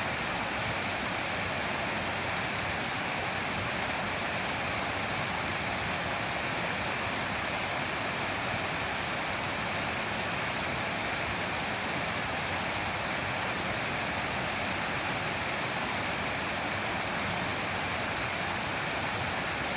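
Mountain stream water rushing and splashing over rocks in a small waterfall, a steady even rush with no change.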